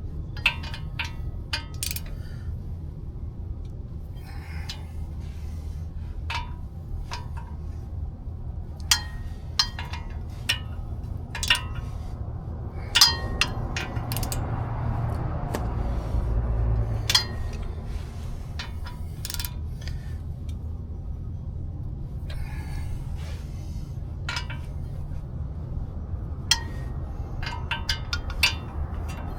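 Hand ratchet and socket clicking and clinking on the spindle nuts as they are tightened, in irregular metallic clicks over a steady low hum, with a brief low rumble about halfway through.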